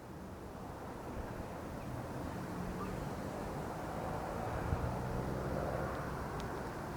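A steady, distant engine drone, a low hum under a faint hiss, slowly growing a little louder.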